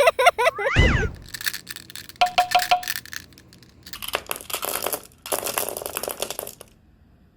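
Glass marbles clacking and rattling as they run down a marble run course, with rapid runs of sharp clicks and a few short ringing tones.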